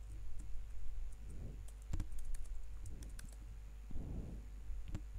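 Computer keyboard typing: scattered, irregular key clicks.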